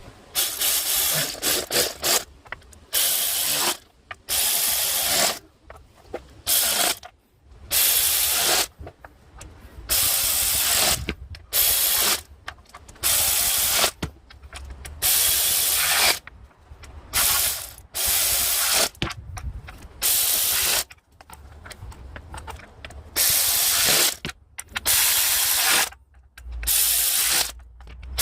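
Hand ratchet wrench being worked back and forth, each stroke a short burst of rapid clicking, about one every second or so with brief pauses between.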